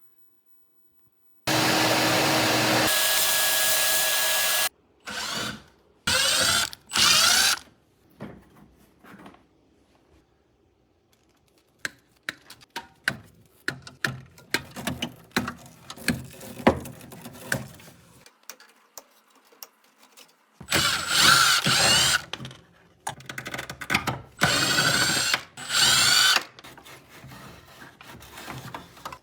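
Power drill run in several bursts: one long steady run near the start, then short spin-ups later on. Between the bursts come scattered clicks and knocks of tools and material being handled.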